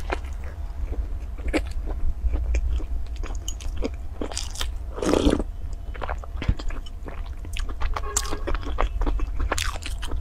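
A person biting into and chewing a crusty bun sandwich with lettuce: crisp crunches and many small wet clicks of chewing, with a bigger bite about halfway through and another near the end.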